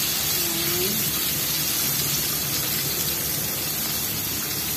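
Chicken pieces frying in bubbling oil in a wok: a steady sizzle.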